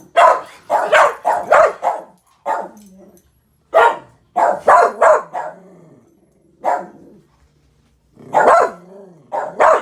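Dogs barking in bursts at people close by: a rapid run of barks, then single barks and short pairs, with one longer, wavering bark-yowl near the end.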